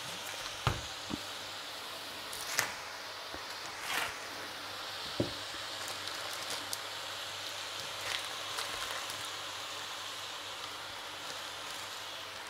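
Steady sizzle of chopped white cabbage frying in oil in a steel pot. Within the first five seconds come a few sharp crinkles and taps as a plastic-wrapped piece of Kasseler is handled and opened.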